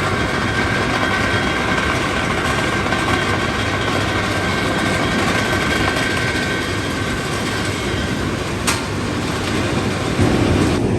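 Heavy steel mill machinery running steadily, with a thin high whine over the noise and a single sharp clank of metal about three-quarters of the way through.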